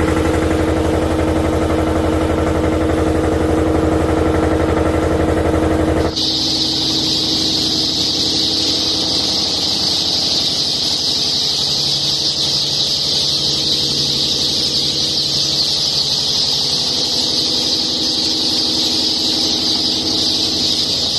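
An engine running with a steady low hum for about six seconds, cutting off abruptly. After it, a dense, continuous high-pitched peeping from a crowd of young poultry chicks.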